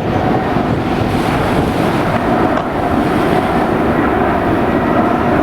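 Jet airliner's engines running steadily as it comes in to land, with wind buffeting the microphone.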